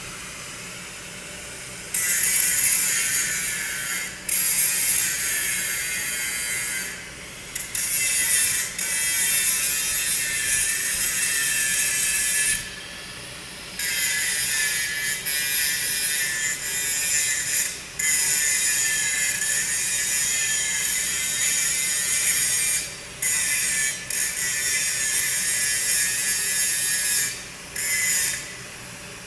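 Angle grinder grinding a steel pipe, a high-pitched whine over harsh grinding noise. It runs in long passes with short breaks where the disc comes off the metal.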